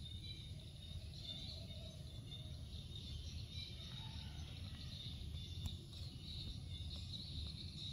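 Quiet ambience: a low steady hum with faint high-pitched chirping throughout, typical of insects outside.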